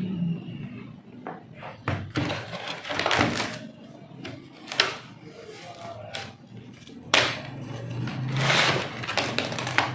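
Plastic case of an HP 1000 laptop being pried open: irregular clicks and snaps as its clips let go, with scraping and handling of the cover in between.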